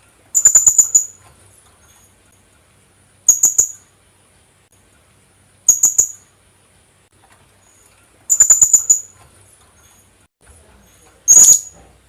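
Philippine hanging parrot (kulasisi) calls: five short bursts of rapid, sharp, high-pitched notes, each under a second long and repeated every few seconds.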